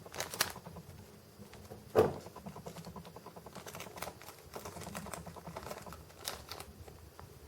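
Light clicks and taps of small diecast model parts and tools being handled on a work surface, with one louder knock about two seconds in.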